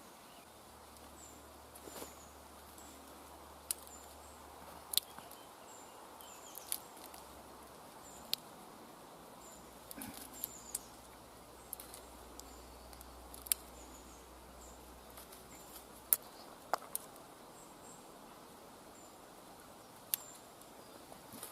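A knife carving shavings from a dry, partly rotten stick: sharp, irregular clicks and short scrapes as the blade cuts through the wood.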